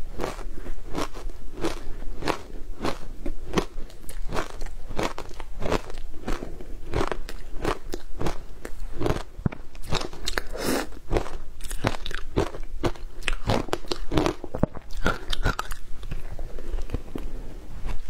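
Frozen matcha ice being bitten and crunched in the mouth: a steady run of crisp crunches, about three a second.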